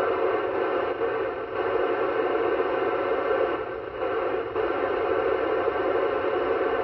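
Yaesu FT-991A transceiver's speaker giving steady open-squelch FM static while tuned near the ISS 437.8 MHz downlink, with no station audible; the hiss dips slightly twice, about a second in and again near the middle.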